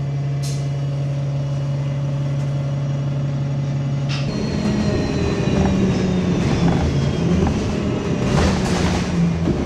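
Bus interior sound: a steady low engine hum while the bus stands, then, about four seconds in, the noise of the bus driving, with a shifting engine note, rattles and a faint high whine that slowly falls in pitch.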